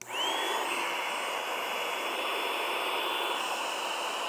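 Built-in electric air pump of an Intex Dura-Beam air mattress switching on and running in deflate mode, sucking the air out of the mattress. It is a steady fan whir with a whine that rises quickly as the motor spins up at the start, then holds level.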